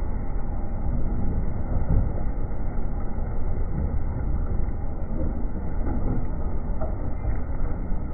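Tractor pulling a mounted plough through dry soil: a steady low rumble of the engine under load and the plough working the ground.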